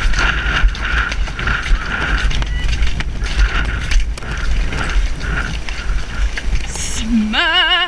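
A ridden horse moving along a muddy track, its tack creaking and clicking in time with its stride about two to three times a second, over a steady rumble of wind on a GoPro helmet camera. Near the end a horse gives a brief whinny with a wavering pitch.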